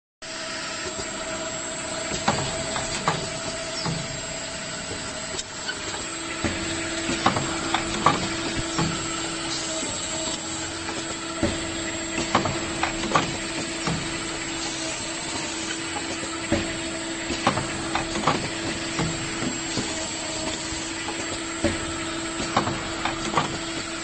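Automatic paper-tube crimping machine with bottom-cap inserting running: a steady mechanical hum with sharp clacks and knocks from its stations roughly once or twice a second. A second steady tone joins the hum about six seconds in.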